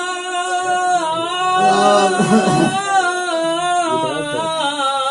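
A naat sung without instruments: a voice holding long, wavering notes on a drawn-out vowel, with several voices overlapping about two seconds in.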